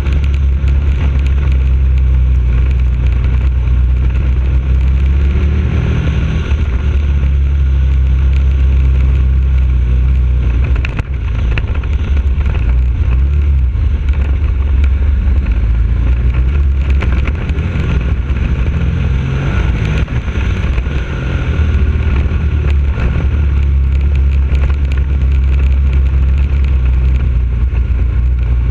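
KTM 1190 Adventure's V-twin engine running steadily as the motorcycle climbs a gravel track, dipping briefly about eleven seconds in and again around twenty-one seconds.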